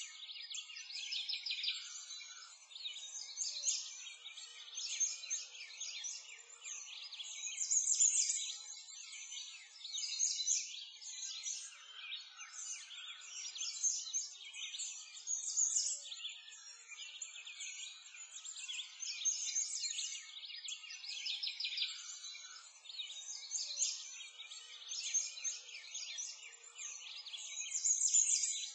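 Birdsong ambience: many small birds chirping and trilling at once, the calls overlapping continuously and swelling louder every few seconds.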